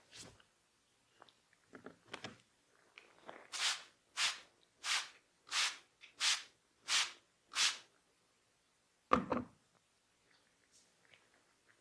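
Massage hands making seven even swishing rubbing strokes, about one and a half a second. About two seconds after the last stroke comes a single thud.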